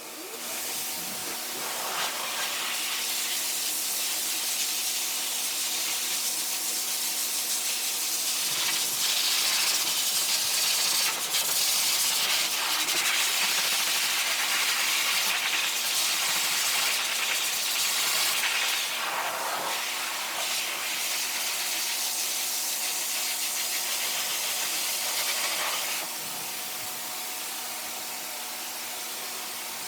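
Pet force dryer starting up suddenly and blowing air to dry a poodle puppy's coat: a loud, steady rushing hiss over a constant motor hum, dropping a little in level near the end.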